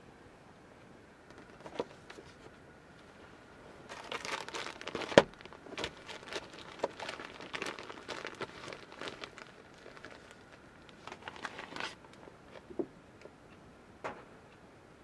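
Clear plastic bags crinkling and rustling in fits as they are handled and rummaged through, with a single sharp knock about five seconds in and a couple of lighter knocks near the end.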